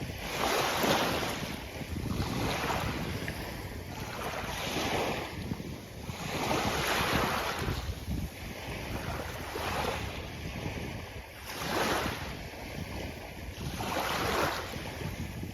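Small sea waves breaking and washing onto a beach, swelling and fading every couple of seconds over a steady low rumble.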